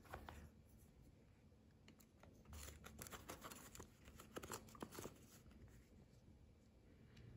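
Faint handling sounds of a knife and its sheath. A short rattle comes as the sheath is picked up off a wooden table. About two and a half seconds in, a run of light scraping clicks lasting a couple of seconds follows as the blade is slid into the sheath.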